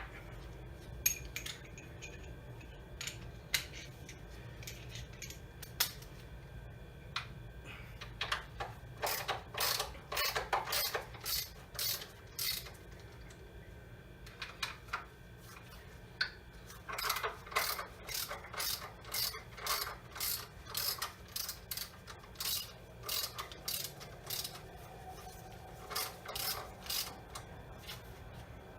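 Hand socket ratchet clicking: a few separate clicks, then several bursts of rapid clicking as it is worked back and forth on bolts.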